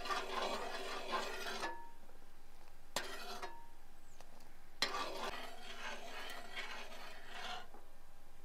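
A spoon stirring and scraping thick, reducing brahmi paste around a pan. There are two spells of scraping with a pause of about three seconds between them, and a light knock in the pause and a sharper knock as the second spell begins.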